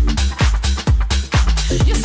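Electronic dance music from a DJ set: a steady four-on-the-floor kick drum at about two beats a second over a sustained bass line.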